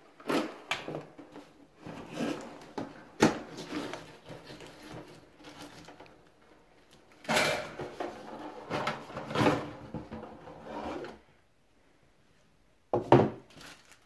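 Cardboard parts box being slit open with a knife and its flaps pulled open, then cardboard scraping and rubbing as the contents are slid out, in a string of short scrapes and knocks. A short loud bump comes about a second before the end.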